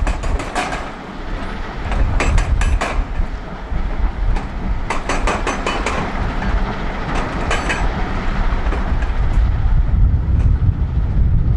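Volvo L350F wheel loader's large diesel engine running with a steady low rumble, with several short bursts of rapid clattering from gravel and stones, the first as a bucketload of gravel pours out right at the start.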